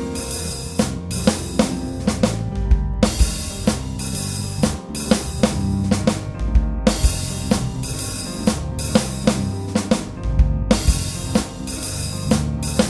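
Music with a steady drum-kit beat of bass drum, snare and cymbals, over held instrument tones and a heavy bass line.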